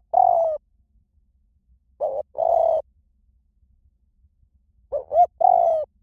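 Spotted dove cooing with a small, light voice: phrases about every two and a half to three seconds, each one or two short notes followed by a longer coo that falls slightly in pitch.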